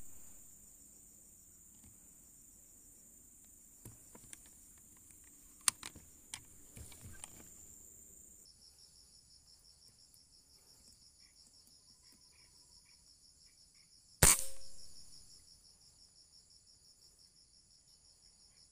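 A single air rifle shot about three-quarters of the way through, sharp with a short ringing tail, over steady insect chirring; a few faint clicks come before it. The shot misses the squirrel.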